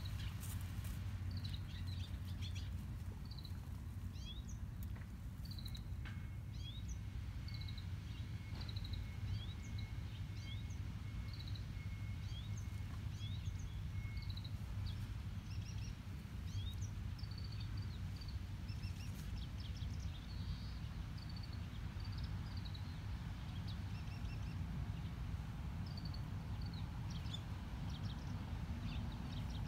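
Small birds chirping, many short high calls scattered throughout, over a steady low background rumble.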